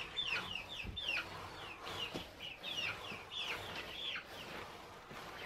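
Chicks peeping: many short, high, falling chirps, several a second and overlapping.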